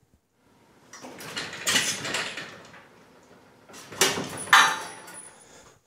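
Motorcycle lift jack lowering a 900-pound motorcycle in jerks, shaking and rattling, with a loud clunking surge about four seconds in followed by a brief ringing. The jack's 1,500-pound bottle jack is loaded well beyond its rated capacity, its seals and valves straining, so it lets the load down unevenly instead of smoothly.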